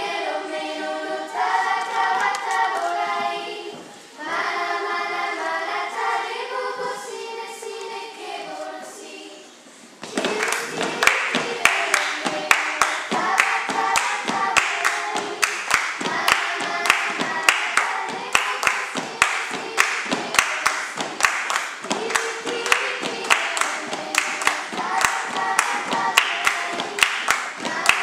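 A group of girls singing unaccompanied. About ten seconds in, body percussion joins the singing: claps and slaps on a steady, quick beat.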